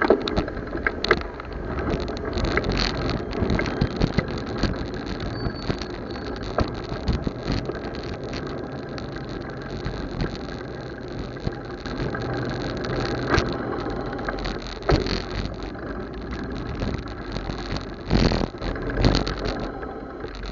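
Road and traffic noise picked up by a camera mounted on a moving fat-tire bicycle, with frequent small rattles and knocks from the ride and a louder stretch of passing traffic near the end.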